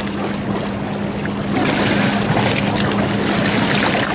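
Steady rushing of wind and water, swelling and easing, with a constant low hum underneath.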